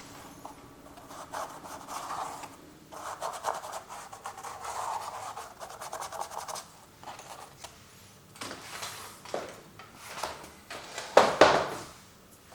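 Paint being worked onto a canvas with a tool: irregular scratchy, rubbing strokes that come in clusters, with a louder stroke about eleven seconds in.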